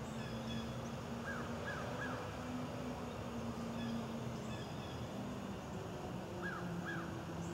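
Bird calls in a forest: three short rising-and-falling notes about a second in, then two more near the end, over steady outdoor background noise and a low, steady distant drone.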